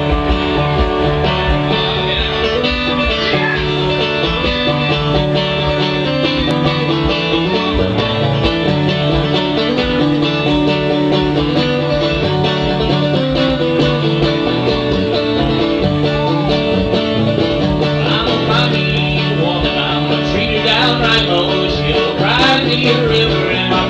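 A live acoustic country band: acoustic guitar strumming with a fiddle over a steady, repeating bass line. A man's singing voice seems to come in about three-quarters of the way through.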